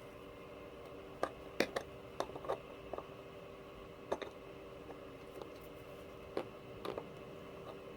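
Faint, irregular small clicks and taps of a tool working a small metal connector pin held in locking pliers while it is heated to melt out old solder, over a steady faint hum.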